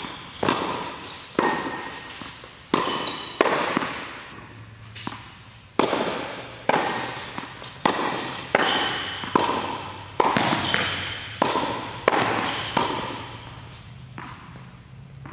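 Tennis ball being hit with racquets and bouncing on a hard indoor court, a sharp pop roughly every second, each one echoing in the large hall. The hitting stops a couple of seconds before the end.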